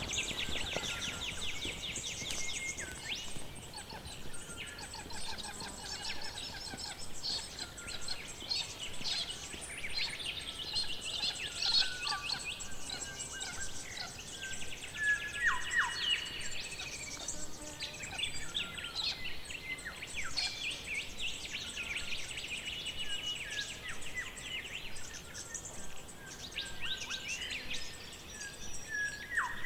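Forest ambience of several birds singing and calling at once: fast chirping trills overlapping one another, with a quick downward-sliding call about halfway through and another near the end.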